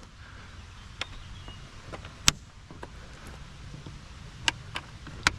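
Airbox lid clips being snapped shut one by one: a handful of sharp clicks spread over a few seconds, the loudest a little past two seconds in.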